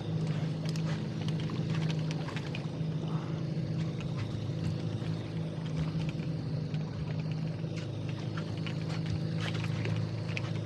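Boat motor running steadily, with irregular water splashing as a hooked king salmon thrashes at the surface.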